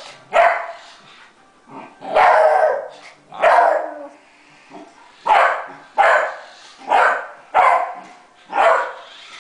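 Young beagle barking at a remote-control toy car: about eight loud barks, roughly one a second, with one drawn-out bark about two seconds in.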